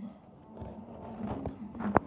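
Rustling and soft knocks of movement against a leather sofa, with a sharp click near the end.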